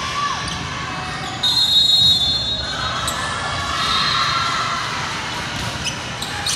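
Indoor volleyball match sounds: general crowd noise in a large gym with ball and court sounds. About a second and a half in, a shrill held whistle-like tone lasts just over a second, likely the referee's whistle.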